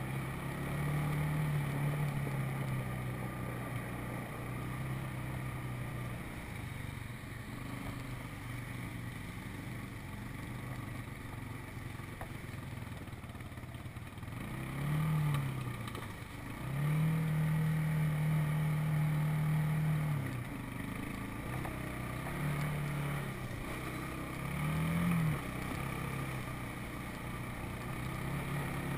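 Four-wheeler (ATV) engine running under way, its pitch rising and falling with the throttle: held higher for a few seconds about halfway through, with short revs around then and again near the end.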